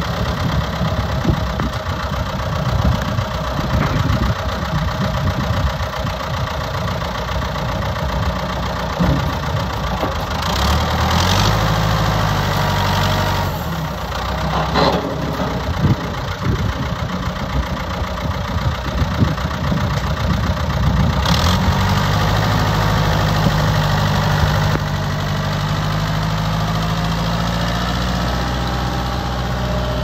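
Ford 6610 tractor's four-cylinder diesel engine running, with its engine speed rising and holding steady a few times while the front loader is worked and the tractor drives off.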